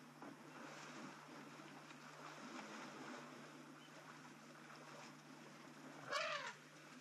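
An African elephant gives one short, high trumpet about six seconds in, over a faint steady hum and low outdoor background noise.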